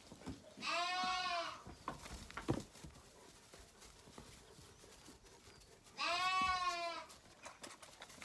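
Zwartbles lamb bleating twice, each bleat a drawn-out call of about a second, the second some five seconds after the first.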